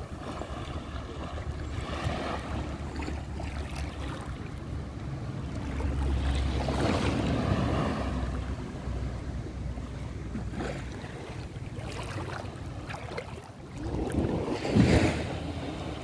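Wind buffeting the microphone over the wash of small waves in shallow sea water at the shoreline, swelling about halfway through and again briefly near the end.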